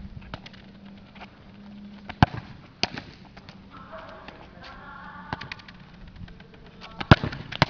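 Sharp thuds of a futsal ball being kicked and striking the concrete court: a loud one about two seconds in and another about seven seconds in, with fainter knocks and clicks between.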